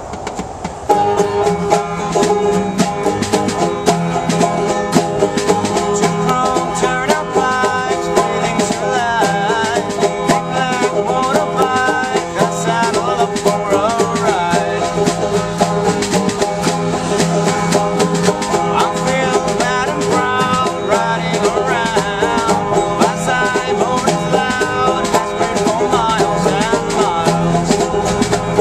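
Acoustic folk band playing: strummed guitars and a hand drum slapped on the lap start about a second in, and a man's singing voice comes in over them a few seconds later.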